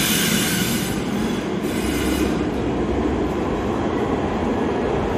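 Light-rail tram pulling into an underground station and coming to a stop, with a high squeal of wheels on rail at the start and again about two seconds in, over a steady running noise that echoes off the platform walls.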